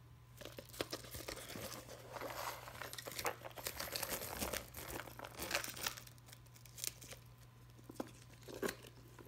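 Packaging crinkling and rustling as a clutch bag is unpacked and handled, dense for about six seconds, then a few separate light clicks.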